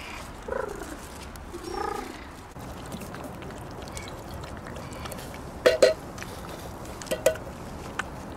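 A street cat meowing twice, two short calls that bend in pitch. Later come a few sharp clicks, the loudest sounds here: two quick pairs and then a single one.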